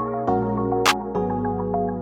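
Background music: sustained synthesizer chords that change about every second, with a sharp percussion hit about a second in.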